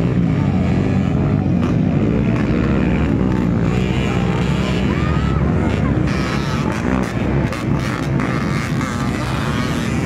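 Several dirt bikes racing on a motocross track, their engines revving up and down as the riders approach over the dirt, with people's voices underneath.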